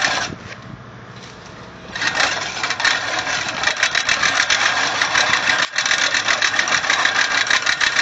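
Great States push reel mower cutting grass as it is pushed: the spinning reel blades clatter against the bed knife in a rapid run of clicks. It stops briefly near the start and picks up again about two seconds in. The reel blade is damaged and does not spin smoothly, though it still cuts.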